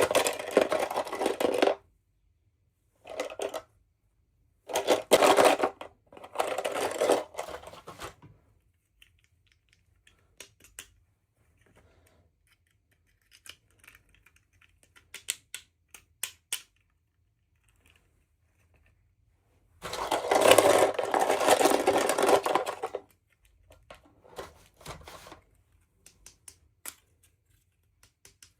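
Toy packaging being handled and opened by hand: bursts of rustling a second or two long, the longest about two-thirds of the way through, with scattered small clicks and taps between them.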